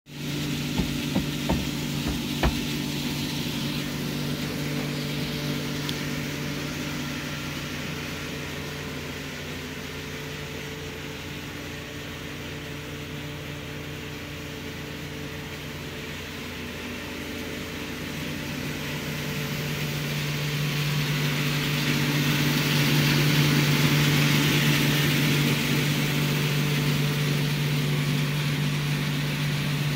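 Cereal grinder mill running steadily: a constant machine hum with a rushing hiss that grows louder about two-thirds of the way in, while ground grain pours from its outlet chute. A few sharp knocks come in the first couple of seconds.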